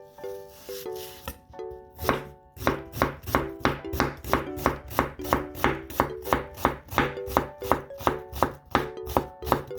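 Knife chopping on a cutting board in a steady rhythm of about three strokes a second, starting about two seconds in, over light background music.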